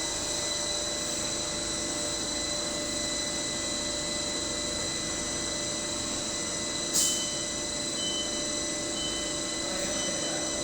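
CNC lathe running with a steady, even machine whine made of several constant high tones. A sharp click comes about two-thirds of the way through, followed by short, faint beeps repeating at irregular intervals.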